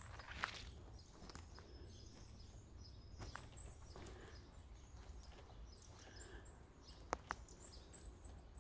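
Faint footsteps on moss and leaf litter, with a few sharp cracks of twigs underfoot, two close together near the end, and thin, high bird chirps in the background.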